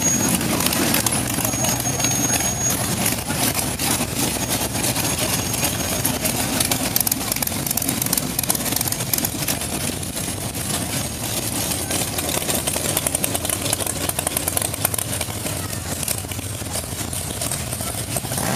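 Classic and custom cars' engines running at low speed as the cars roll slowly past in cruise traffic, a steady low engine sound.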